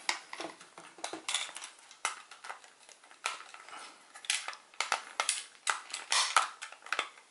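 Plastic parts of a DX9 D06 Carry transforming robot figure clicking and rattling as panels are folded and their tabs pushed into slots, in short irregular clicks that get busier about four seconds in.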